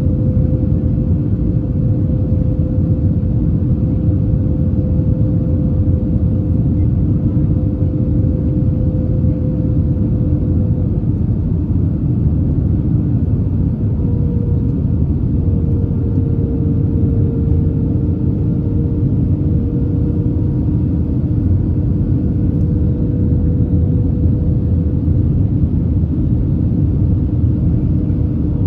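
Airbus A321 in flight: a steady rumble of airflow and engines with a constant engine hum, whose higher tone shifts slightly in pitch about halfway through.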